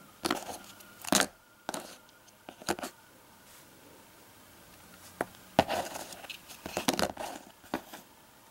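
Cardboard 2x2 coin holders rustling and crinkling as they are handled and shifted, in short irregular bursts.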